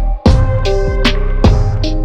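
Background music with a steady drum beat and sustained held notes.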